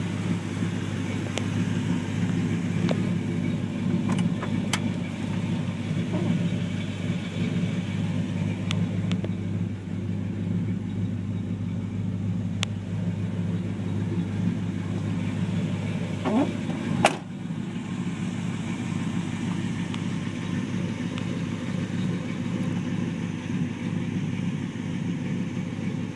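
A 1985 GMC pickup's engine idling steadily. There are a few light clicks, and one sharp click about seventeen seconds in.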